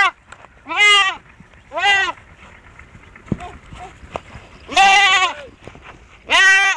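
A young goat bleating: four loud bleats, two about a second apart, then after a gap of nearly three seconds two more close together near the end.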